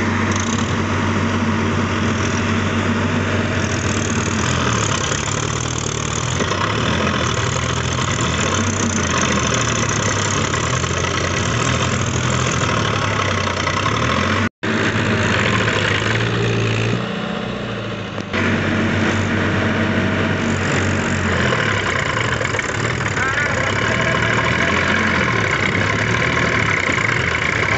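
Diesel engines of a Sonalika DI 42 and a Mahindra Yuvo 575 tractor running under load as one tows the other, stuck in deep mud, with a chain, the engine pitch wavering as they work. The sound breaks off for a moment about halfway through.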